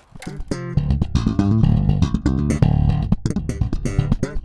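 Electric bass guitar being played: a fast run of sharply plucked low notes.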